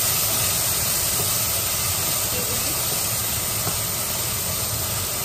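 Diced potatoes sizzling steadily in hot oil in a frying pan as they are stirred with a wooden spatula.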